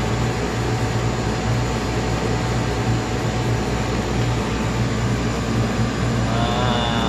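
Freezer's outdoor condensing unit running steadily, a compressor hum with condenser-fan air noise, during pump-down with the liquid solenoid closed and the suction pressure falling.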